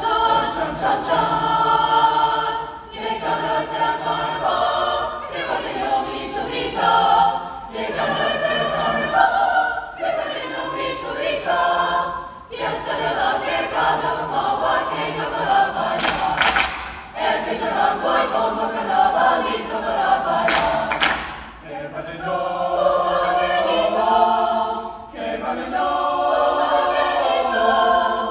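Mixed choir of men's and women's voices singing in phrases with short breaks, the singers clapping their hands in places.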